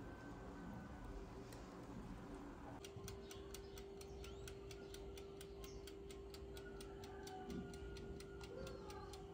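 Oven running with a steady hum and an even, rapid ticking of about four ticks a second, starting about three seconds in after faint room sound.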